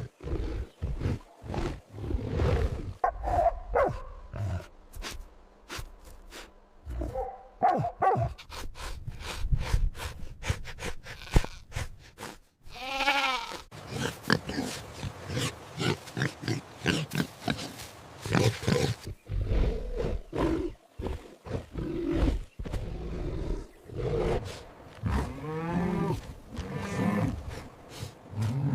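Pigs grunting over and over in short strokes, with a high squeal about halfway through and more squeals near the end.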